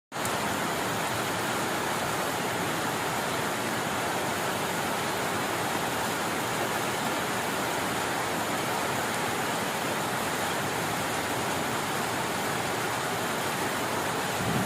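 Steady rain falling, an even unbroken hiss with no single drops or other sounds standing out.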